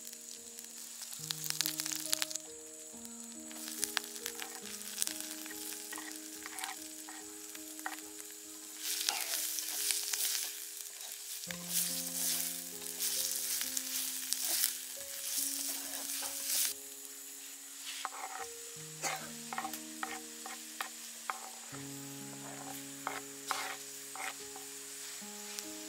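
Chopped onions and green chillies sizzling in hot oil in a clay pot, stirred with a wooden spoon that scrapes and clicks against the pot, over soft background music.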